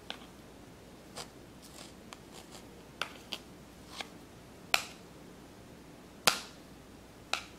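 A spatula scraping and pressing mashed potato against a stainless-steel wire-mesh strainer, making about nine irregular sharp clicks, two louder ones in the second half.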